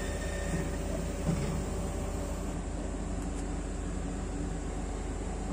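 Heavy diesel engine running steadily with a low hum. A faint high whine over it stops about two and a half seconds in.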